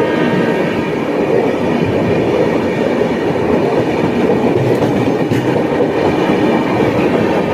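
Dibrugarh Rajdhani Express coaches rolling past: a steady, loud rumble and clatter of train wheels on the rails.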